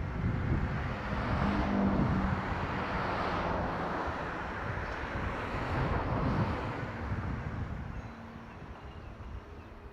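Jet airliner's engines at takeoff thrust on its departure roll: a steady, loud roar with low rumble and a few steady hums, fading over the last couple of seconds as the aircraft moves away.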